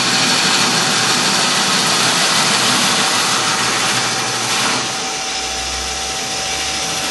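Bowl gouge cutting the outside of a large green poplar bowl spinning on a wood lathe: a steady, noisy cutting sound that gets a little softer about five seconds in.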